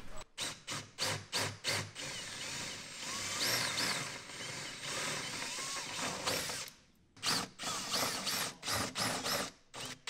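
Cordless drill drilling out the rivets that hold a van's door speaker. It starts with a quick series of short bursts, then runs steadily for about five seconds with a high whine that rises and falls, then goes back to short bursts.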